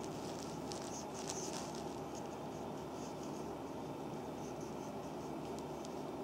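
A wooden reflexology stick and oiled fingers rubbing over the sole of a foot: light scratchy strokes and soft skin squishes come and go over a steady background hiss.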